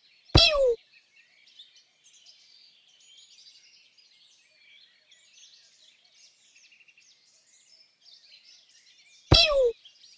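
Continuous faint chirping and twittering of many small birds. Twice, about half a second in and again near the end, a loud, short call slides downward in pitch.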